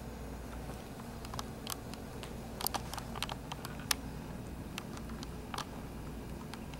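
Chihuahua puppies scuffling on a couch: scattered small clicks and scratches, thickest about halfway through, over a steady low hum.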